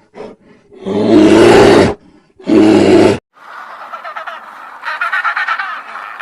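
A large animal roars twice, each deep roar lasting about a second. Then, just past the middle, rapid rhythmic bird squawking takes over and grows louder toward the end.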